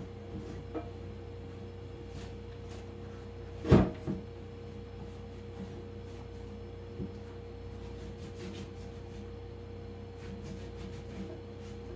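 Kitchen cleaning sounds: light taps and clicks of things being handled, and a loud knock about four seconds in followed at once by a smaller one, over a steady hum.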